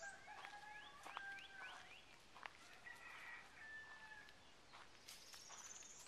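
Faint bird calls: a run of short rising notes and held whistled notes, then a high, fast trill near the end. Light footsteps on dry leaf litter tick underneath.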